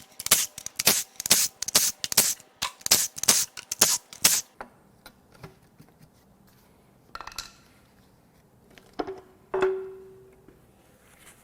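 Rapid, irregular metallic clicks and knocks from hand tools working on the engine's valve cover hardware for about four and a half seconds. After that come a few scattered knocks and, near the end, a metal part set down with a short ring.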